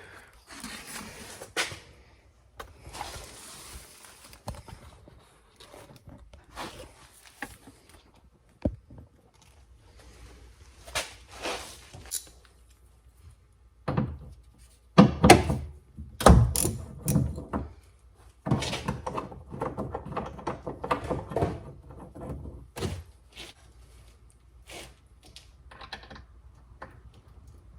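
Scattered clunks, knocks and rustling of hand work on a 2012 Fiat 500's door, as tools and loose parts are handled around the door. The loudest knocks come about halfway through.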